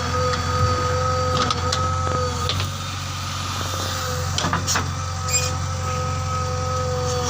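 Heavy diesel engine running steadily under a steady high whine, with a few short metallic clanks and knocks.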